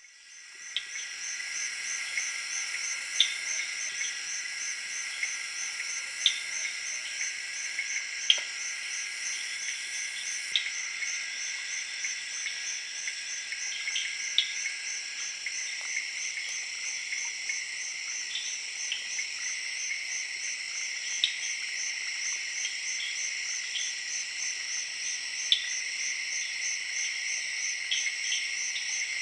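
Evening chorus of tree frogs and crickets in a central African rainforest. Steady high trilling, one part in a rapid, even pulse, runs under short sharp calls that stand out every second or two. The chorus fades in over the first second.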